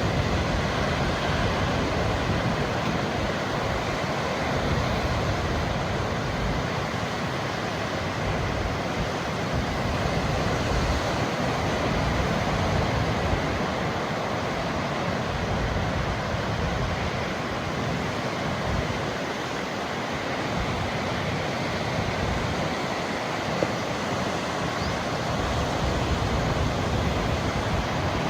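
Steady wash of ocean surf, waves breaking and running up the shore without pause, with a low rumble of wind on the microphone.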